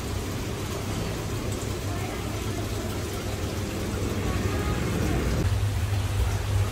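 Steady electric hum of aquarium equipment, with a low wash of water-like noise over it. About five and a half seconds in, the hum becomes stronger.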